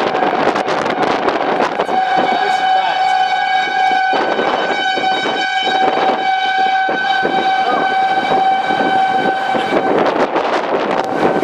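Outdoor tornado warning siren sounding a steady tone, dipping briefly about four seconds in, with wind buffeting the microphone.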